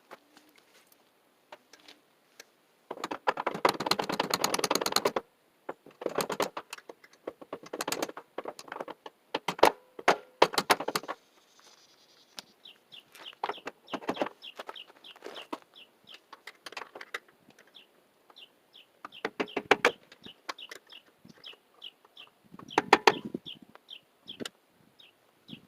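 Birds: a burst of rapid clattering about three seconds in, then scattered clicks, then from about halfway a long run of short high chirps repeating about twice a second.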